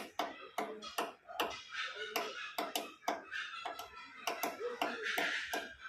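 Woodpecker pecking at wood while foraging: sharp, separate taps at an uneven pace of about two to three a second.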